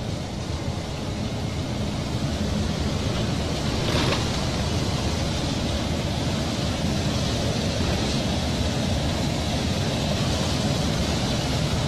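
Semi-truck's diesel engine running and tyre and wind noise heard inside the cab while driving at steady speed, a continuous low rumble under a hiss.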